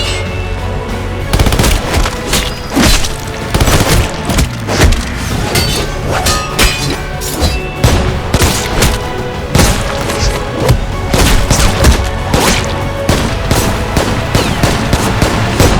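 A rapid montage of action sound effects, many sharp hits, booms and gunfire-like shots in quick succession, over music with a steady low bass. It cuts off at the end.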